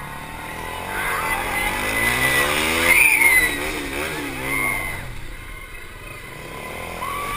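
KTM Duke 390's single-cylinder engine pulling hard under acceleration: the revs climb for a couple of seconds, waver and drop off about halfway through as the bike slows for a corner, then climb again near the end.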